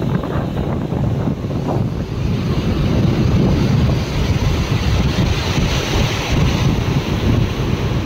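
Rough surf breaking and washing over rocks, a continuous rushing wash with a louder hissing surge through the middle. Wind buffets the microphone with a low rumble.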